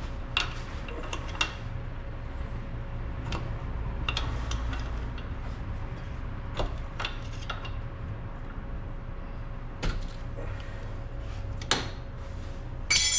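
Scattered metallic clicks and knocks of hand tools on car suspension parts, with a sharper, ringing clink near the end, over a steady low hum.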